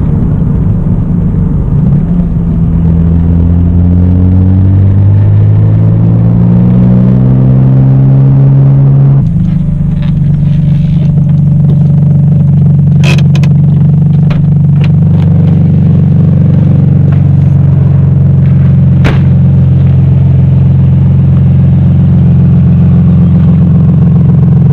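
1993 Toyota Supra's naturally aspirated 3.0-litre straight-six (2JZ-GE) with an aftermarket exhaust and K&N intake, pulling in gear with revs climbing steadily for about nine seconds, then holding steady at cruise. A couple of sharp clicks come through later on.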